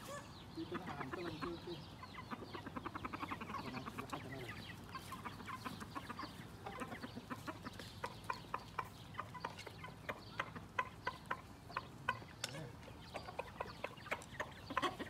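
Chickens clucking in many short, irregularly spaced clucks.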